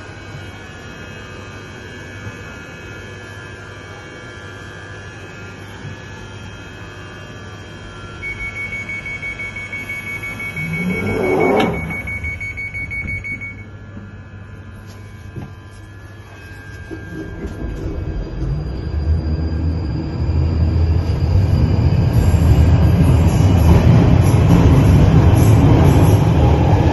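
London Underground Northern Line 1995-stock train at a platform: a steady hum while it stands, then the door-closing alarm beeps for about five seconds as the doors slide shut. In the last third the train pulls away, its motors and wheels rumbling louder and louder as it accelerates.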